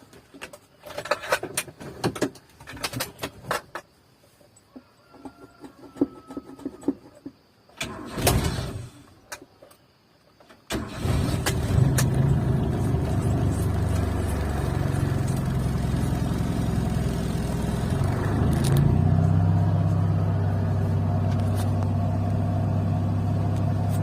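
A 1990s car: clicks and knocks of keys and handling for the first ten seconds, with a short rushing sound about eight seconds in, then the engine starts about eleven seconds in and idles steadily, its pitch shifting slightly near the end.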